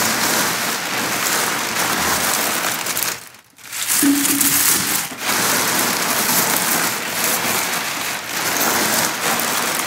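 Dried white sage leaves and stems crackling, and a large plastic bag crinkling, as handfuls are pulled out and pressed down into a stainless mesh still basket. The handling stops briefly about three and a half seconds in.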